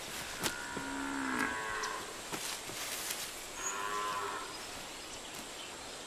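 Cattle lowing twice: a short moo about a second in and another around four seconds in.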